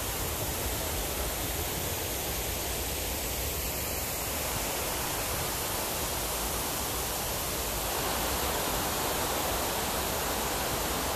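Steady rush of river water spilling over a low concrete check dam and down the rocks.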